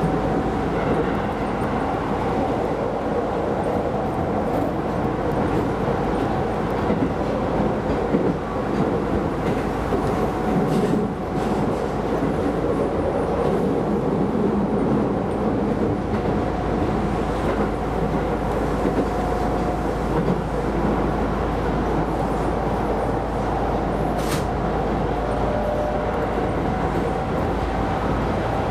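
Keisei Line electric train running at speed, heard from inside the front car: a steady running noise with a faint held whine. A brief sharp high sound comes about 24 seconds in.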